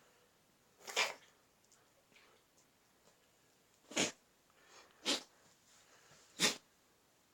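A dog sneezing four times: short, sharp sneezes, the first about a second in, then three more close together in the second half.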